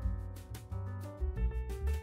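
Background music with a bass line, sustained instrumental notes and a steady drum beat.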